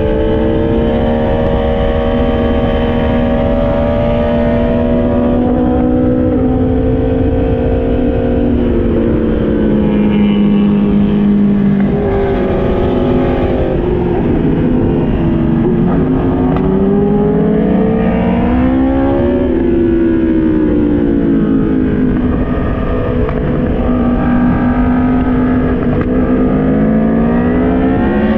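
Sport motorcycle engine heard from the rider's seat, its note rising and falling as the bike accelerates and backs off through the bends, with a sharp drop in pitch about twelve seconds in. A steady rush of wind noise runs underneath.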